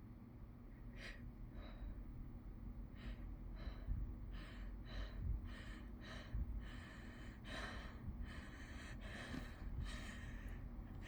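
A person's short, faint sniffing and gasping in-breaths as a sneeze builds up: a few spaced out at first, then about two a second.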